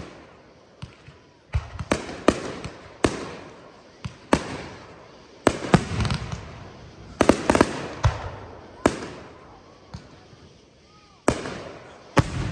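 Fireworks display: aerial shells bursting in irregular loud bangs, each trailing off in a ringing echo, some in quick clusters of two or three, with a short lull before a last pair of bangs near the end.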